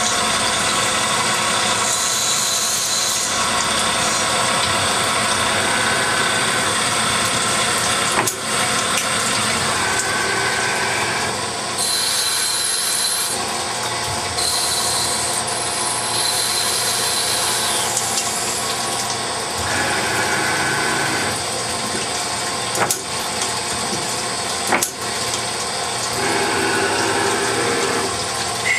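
Hardinge HXL CNC lathe running a turning and parting-off cycle with coolant flowing: a steady machine noise, with high whines that start and stop in spells of a second or two as the axes move. A few sharp clicks break in now and then.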